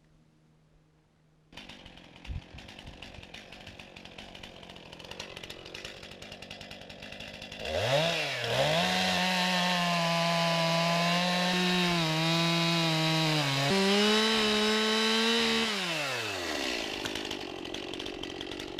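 Two-stroke Stihl chainsaw revving up to full throttle and holding high revs while it cuts through a log. Its pitch steps up once more as the cut frees, then the engine drops back toward idle. Earlier there is only faint outdoor noise with a single knock.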